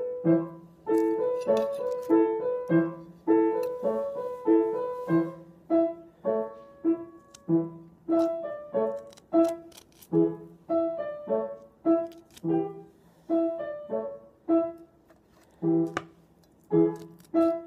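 Piano music: a steady run of single struck notes and chords, each ringing and fading before the next.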